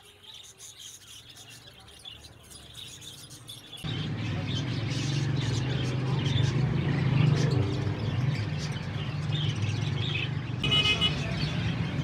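Lovebirds chirping in short, high calls. About four seconds in, a much louder steady low rumble comes in suddenly under them.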